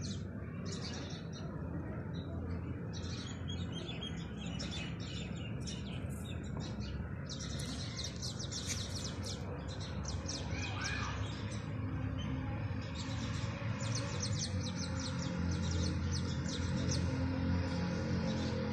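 Small birds chirping in quick runs of short high-pitched calls, again and again, over a steady low rumble.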